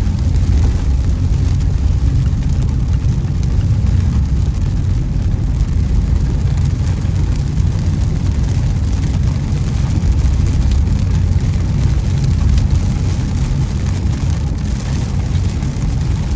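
Car cabin noise while driving on rain-soaked roads: a steady low rumble of tyres and engine, with a hiss of rain and water spray.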